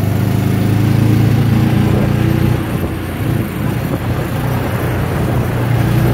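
Go-kart's small engine running at speed, heard from the driver's seat. It eases off briefly about halfway through, then picks back up.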